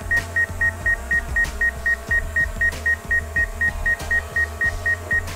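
DJI Mavic Air 2's obstacle-sensing alarm beeping on the remote controller, short high beeps about four a second: the warning that the drone's sensors detect obstacles close by.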